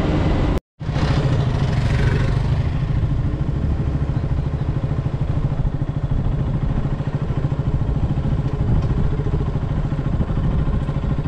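Motorcycle engine running steadily while being ridden at low speed, heard from the rider's seat. The sound drops out briefly under a second in.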